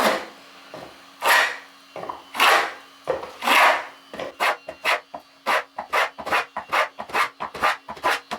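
Stanley No. 45 combination plane with a grooving cutter ploughing a groove along a pine board: four longer cutting strokes about a second apart, then a run of quick short strokes, about three a second.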